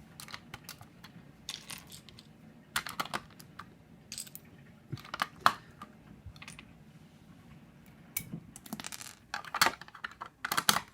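Plastic LEGO bricks clicking and clattering as they are handled and pressed together, in irregular clusters of sharp clicks with the loudest near the end.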